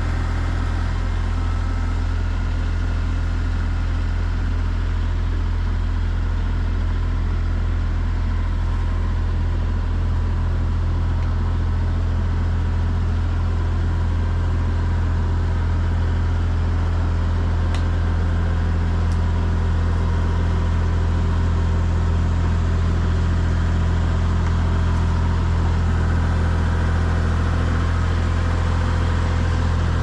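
Kubota compact tractor's diesel engine running steadily at low speed as the tractor drives slowly closer, growing slightly louder.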